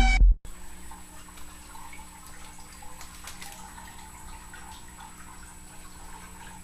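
A loud sound cuts off abruptly about half a second in, leaving quiet room tone with a steady faint electrical hum and a thin high whine.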